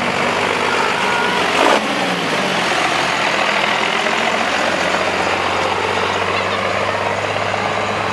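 Cummins turbodiesel engine of a first-generation Dodge Ram pickup running steadily as the truck drives slowly past at close range. About two seconds in there is a short sharp clack, the loudest moment, and the engine note drops just after it.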